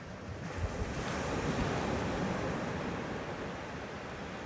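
Surf breaking on a shallow beach: the rush of a wave swells about half a second in, peaks mid-way and slowly fades as the water washes in.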